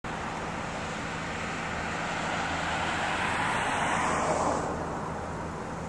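A car passing on the road: a rushing tyre-and-engine noise that swells to a peak about four seconds in and then fades.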